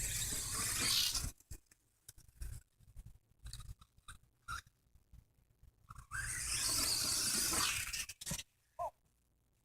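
An RC car driving in two short runs, its electric motor whirring for about a second and then about two seconds, with small clicks and knocks in between.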